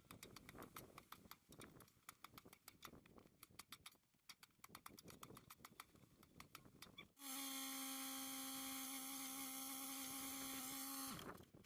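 Rapid chipping and scraping of a chisel in ice and frozen sawdust, many small clicks a second. About seven seconds in, a steady high whine starts, runs about four seconds and cuts off suddenly.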